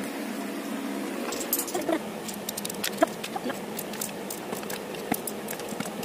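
Domino tiles being set upright one at a time on a tabletop: a scatter of light clicks and taps, the sharpest about three seconds in.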